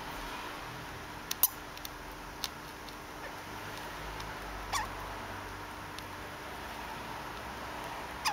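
Degu hiccuping: a few short, sharp hics at irregular intervals, one of them a brief squeak falling in pitch.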